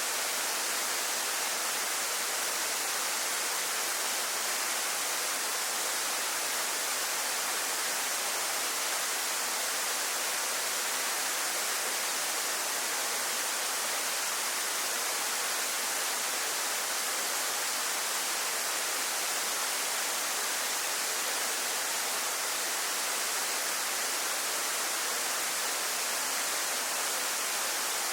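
Waterfall on Yakushima: a steady hiss of falling water, even and unchanging, bright rather than deep.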